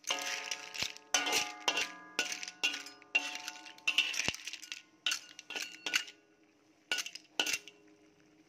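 A spatula scraping and knocking against a wok full of lala clams, shells clinking, about two strokes a second with the wok ringing after each. The strokes thin out to a few separate knocks near the end.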